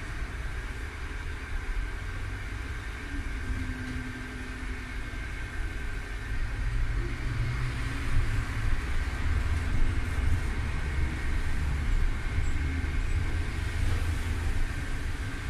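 Interior running noise of a 1963 Düwag GT6 articulated tram in motion: a low rumble of wheels on rail and running gear under a thin, steady high whine. The rumble grows louder about halfway through.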